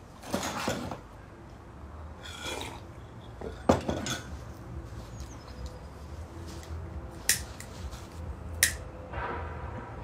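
A clink of handling, then two sharp clicks of a pocket lighter being struck, about a second and a half apart, over a low steady background rumble.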